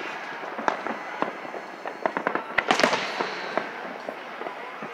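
Fireworks display: scattered sharp bangs and crackles, with a dense run of the loudest ones about two and a half to three seconds in.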